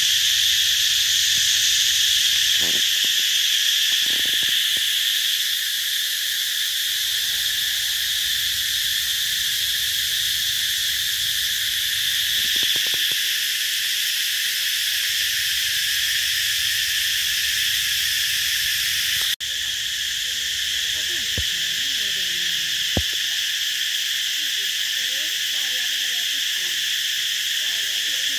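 Steady, loud chorus of insects: a dense, high, continuous buzz. It drops out for an instant about two-thirds of the way through.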